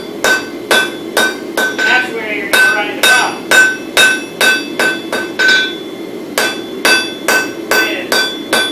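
Hand hammer striking red-hot wootz crucible steel on an anvil, a steady run of blows about two to three a second, each with a bright ring. The hammering pauses briefly a little past halfway, then resumes.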